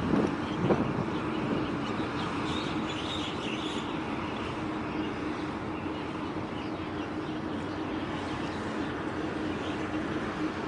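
Steady low engine drone with a constant hum, plausibly from the passing heavy-lift ship, with faint bird chirps over it; a couple of dull thumps in the first second.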